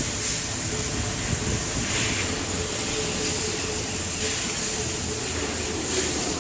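A steady, loud hiss of a running workshop machine, with a faint whine held in it.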